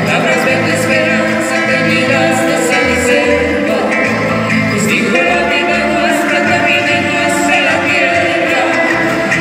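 Live music: singing over instrumental accompaniment with a bass line, running continuously at a steady level.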